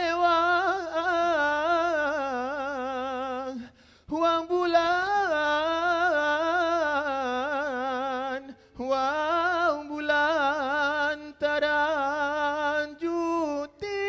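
A solo male singer singing unaccompanied in dikir barat style: several long phrases held on open vowels, the pitch wavering and ornamented, with short pauses for breath between them.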